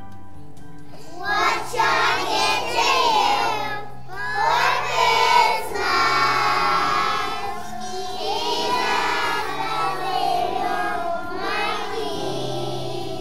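A group of preschool children singing a song together over instrumental accompaniment, the voices coming in about a second in after the instrumental introduction.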